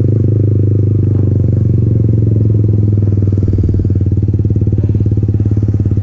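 Yamaha MT-15's single-cylinder engine through an aftermarket Akrapovic exhaust, running at steady throttle while riding, a fast, even exhaust pulse with a deep low hum.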